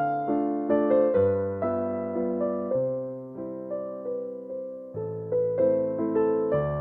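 Background music: a slow, gentle piano melody over held bass notes, each note struck and fading away.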